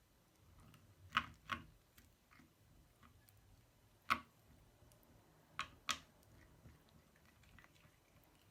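Slime being worked by hand, giving five short sharp pops: a pair about a second in, one midway, and another pair a little later.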